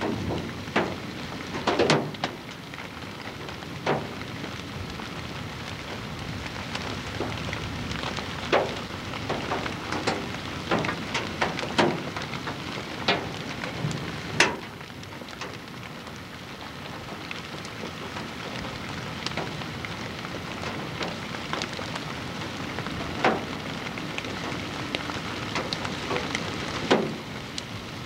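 Strong wind blowing over a cornfield and across the camcorder's microphone: a steady hiss with scattered sharp crackles and pops.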